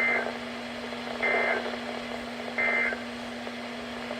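Emergency Alert System end-of-message (EOM) data bursts: three short two-tone digital squawks about 1.3 seconds apart, signalling that the alert has ended. A steady low hum runs underneath.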